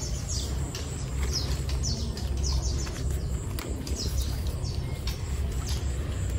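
Small birds chirping: many short, high-pitched, falling chirps, often in quick pairs, over a low steady rumble.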